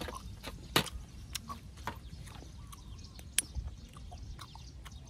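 Metal spoon clicking and scraping against a raw oyster shell as the meat is scooped out: a scatter of light clicks, two sharper ones about a second in and past three seconds in, over a steady low rumble.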